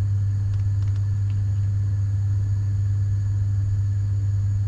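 Steady low electrical hum, the loudest thing throughout, with a few faint soft ticks in the first second and a half as flour is poured from a paper bag into a plastic bowl.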